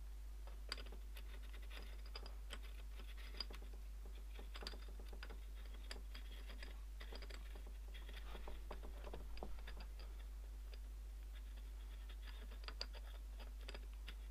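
Small irregular clicks, taps and light scraping of a 0.5x reducing lens being handled and threaded onto the objective end of a stereo microscope head, with a steady low hum underneath.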